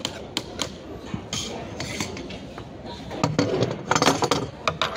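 Metal clinking and clattering as an aluminium partition top rail and small metal brackets are handled and set down on a wooden desktop, with scattered knocks at first and a quick run of loud knocks and rattles in the second half.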